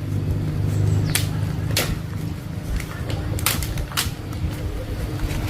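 A motor running steadily with a low drone, with several sharp knocks over it.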